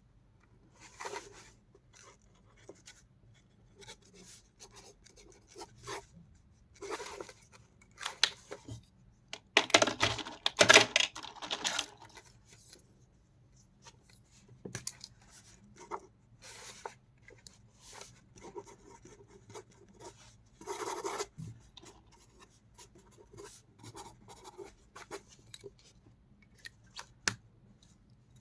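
Pens and their packaging being handled: scattered clicks, taps and short rustles, with a louder, denser stretch of rustling about ten seconds in.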